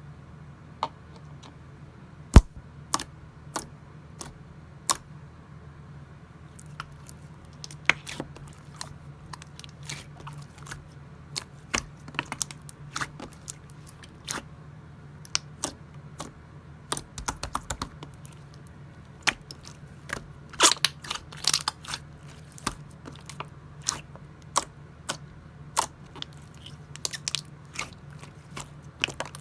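Clear slime being squeezed and stretched by hand, giving sharp, irregular clicks and pops, sparse at first and coming more often from about a quarter of the way in. A steady low hum runs underneath.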